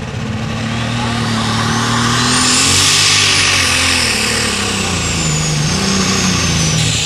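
Turbocharged engine of a John Deere Light Super Stock pulling tractor revving up as it launches a pull against the sled. A high whine climbs over the first three seconds and then slowly falls, while the lower engine note wavers and holds.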